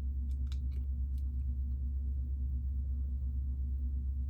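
A few light plastic clicks of Lego bricks being handled and pressed together in the first second or so, over a steady low hum.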